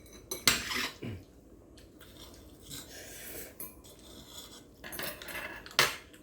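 Eating utensils clinking and scraping against dishes, with sharp clinks about half a second in and again near the end.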